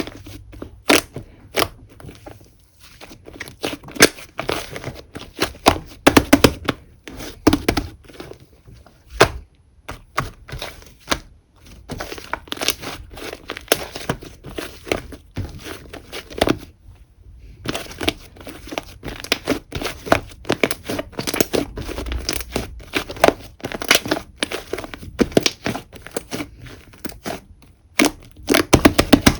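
Whipped-cream slime being squeezed, pressed and stretched by hand: a dense, irregular run of small sticky clicks, pops and crackles, with a short lull a little past halfway.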